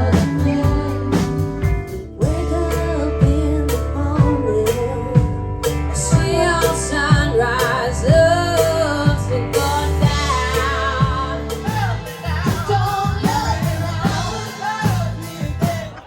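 A song with singing over a strong bass line and a steady beat, cutting off suddenly at the end.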